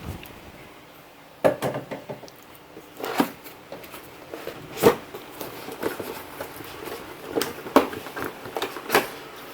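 A cardboard keyboard box and its packaging being opened and handled, with scattered knocks and rustles. The sharpest knocks come about a second and a half in, around three and five seconds, and twice more near the end.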